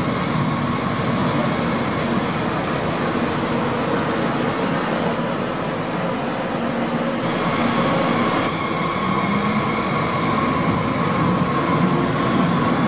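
A Stuttgart S-Bahn electric multiple unit standing at an underground platform, then pulling away: a steady running noise, with a motor whine that grows stronger past the middle as the train starts to move.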